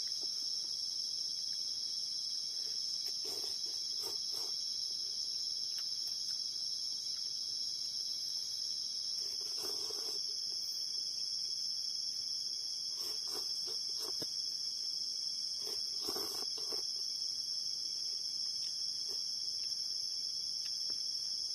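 A steady, high-pitched chorus of night insects trilling on one note. Over it, a few short bouts of slurping and eating sounds as instant noodles are eaten from a pot with chopsticks.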